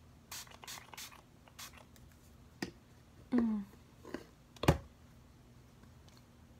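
Pump spray bottle misting the face in four quick hissing sprays. After them come a couple of light taps, a short falling hum from a person, and a sharp knock, the loudest sound.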